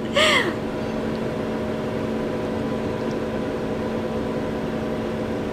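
Steady machine hum with several constant tones, unchanging throughout. A brief voice exclamation is heard right at the start.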